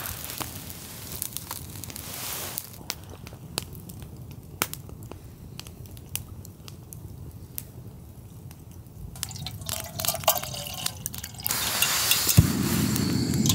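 Campfire crackling with scattered small pops, then, about two seconds before the end, a louder stream of hot water poured into a freeze-dried meal pouch to rehydrate it.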